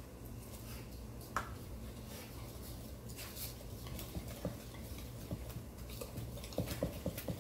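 A thick batter of chopped vegetables, egg and tempura mix being mixed by hand in a ceramic bowl: small clicks and taps against the bowl, coming faster in the last second or so, over a low steady hum.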